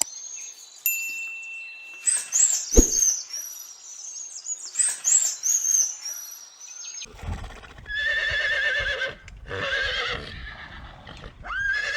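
High-pitched bird chirps repeat over the first half, with a single low thud a little under three seconds in. About seven seconds in, a horse starts whinnying in three wavering bouts.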